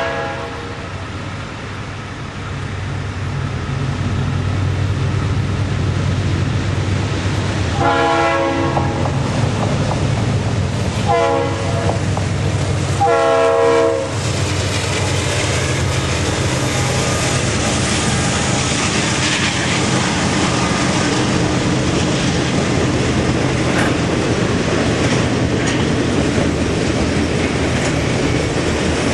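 Norfolk Southern freight train's diesel locomotive sounding its horn in several blasts over the low rumble of its engines, the last blast ending about fourteen seconds in: the warning for a grade crossing. Then the freight cars roll past with a steady clatter of wheels on the rails.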